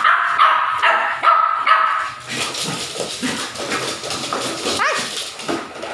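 Dogs play-fighting: a quick run of short, high-pitched barks and yips for about two seconds, then a noisier stretch of scuffling with a short rising whine about five seconds in.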